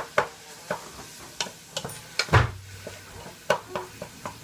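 Food sizzling in a hot pan while a utensil stirs it, with sharp clicks and scrapes of the utensil against the pan and one heavier knock about two seconds in.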